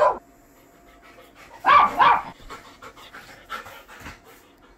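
Golden retriever panting, with two short high-pitched cries about two seconds in.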